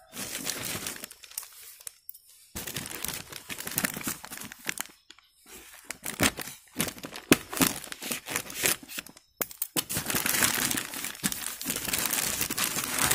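Black plastic courier mailer bag crinkling and tearing as it is cut open with scissors and pulled apart, a run of sharp crackles broken by a few short pauses.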